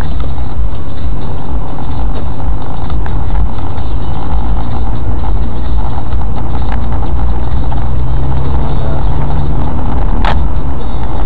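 Car driving, heard from inside the cabin: a steady, loud engine and road rumble. A short sharp click about ten seconds in.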